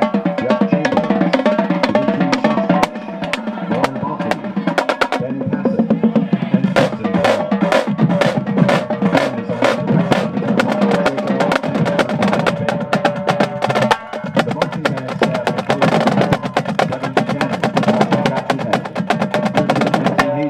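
Marching drumline playing snare drums and bass drums, with rapid stick strokes and rolls.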